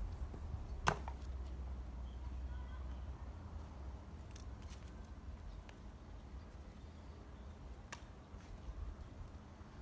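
A single sharp wooden knock about a second in, then a few faint clicks and taps of firewood being handled between axe splits, over a low rumble that fades after a few seconds.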